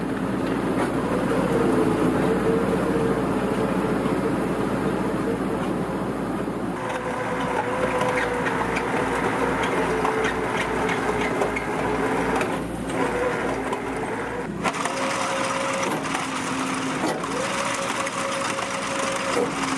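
An excavator running, with a steady whine, and its Simex VSE 20 screening bucket turning its screening shafts, stones and soil rattling and crunching as the fine soil sifts through. From about 7 s in, a low even pulsing runs under the rattle.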